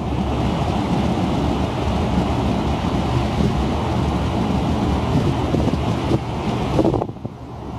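Strong wind buffeting the camera microphone on the open deck of a moving ferry: a dense, gusting low rumble that drops away briefly near the end.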